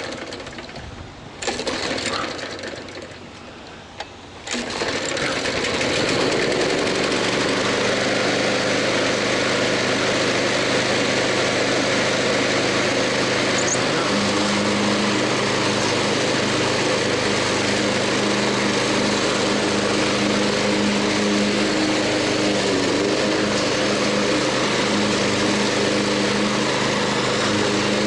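Briggs & Stratton Intek 6.0 OHV engine on a Snapper self-propelled push mower starting about four seconds in after a few short noises, then running at a steady speed on freshly changed oil.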